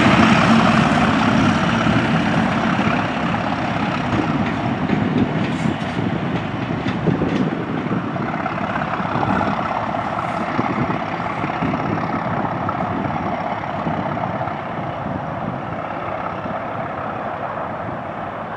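Class 37 diesel-hauled test train moving away: the English Electric V12 diesel engine and the wheels on the rails fade steadily as it recedes.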